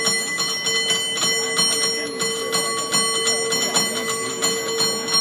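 San Francisco cable car bell rung in a fast, rhythmic pattern, stroke after stroke, its ringing tone held steady underneath.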